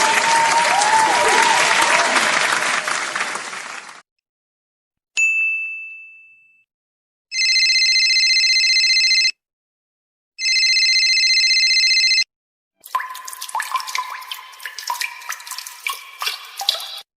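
A string of separate stock sound effects. First, applause and cheering with whistles, which cuts off about four seconds in. Then a single bell ding that fades out, two identical ringing tones each about two seconds long, and finally a rapid patter of clicks and short tones.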